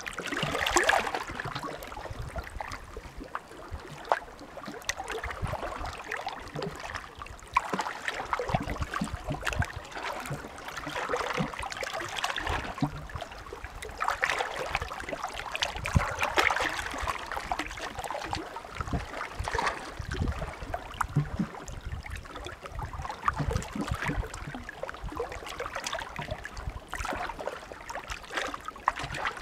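Small Adriatic sea waves washing onto the shore, a hiss that swells and fades every few seconds with a scatter of small clicks.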